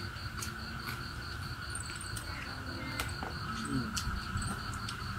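Night insect chorus of crickets trilling steadily, with a high, rapidly pulsing chirp over it and a few faint scattered clicks.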